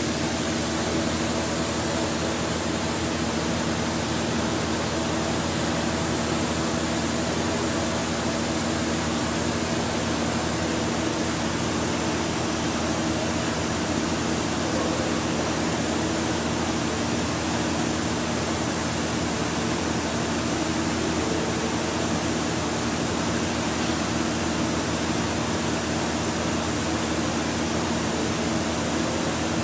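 Walter Helitronic Vision CNC tool grinder running: a steady hiss over a low hum of several steady tones, without change.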